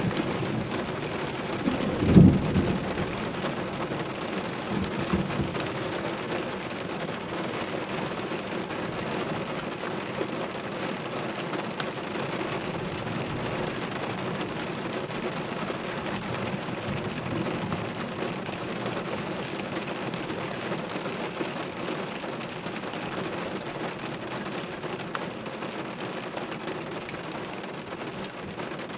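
Thunderstorm: steady rain hiss, with a sudden loud thunderclap about two seconds in and a smaller rumble of thunder around five seconds in.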